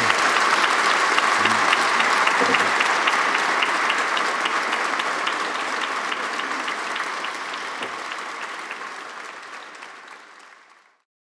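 Audience applauding steadily, fading out over the second half and cutting to silence just before the end.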